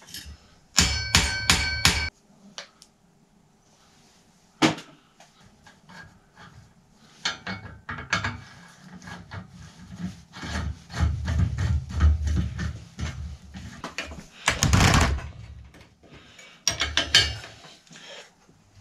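About a second in, a quick run of about six hammer blows on the metal of a bicycle crank, each with a short metallic ring. Then scattered clicks and metal-on-metal rubbing as a pedal is handled and fitted to the crank, with one brief loud scraping noise near the end.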